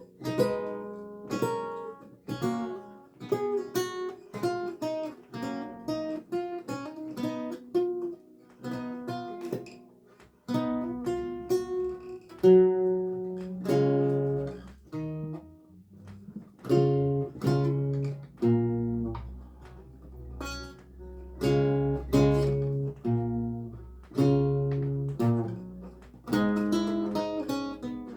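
Solo lute music: a melody of plucked notes and chords over lower bass notes.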